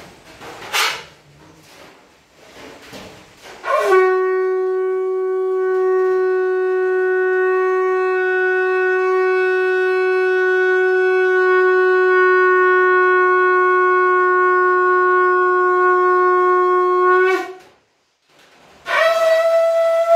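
Conch shell (shankh) blown: one long, steady note that starts about four seconds in and holds for about thirteen seconds before breaking off. After a pause of about a second, a second blast starts near the end at a higher pitch.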